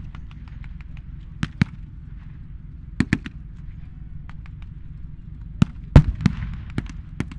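Scattered blank gunfire from a mock battle: single sharp cracks, some in quick pairs, with fainter distant pops between them, the loudest shots in a cluster about six seconds in. A steady low rumble runs underneath.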